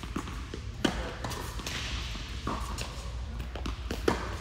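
Tennis rally on an indoor hard court: tennis balls struck by racquets and bouncing, each impact echoing in the hall. The sharpest hits come about a second in and near the end, the latter a sliced backhand, with fainter knocks in between.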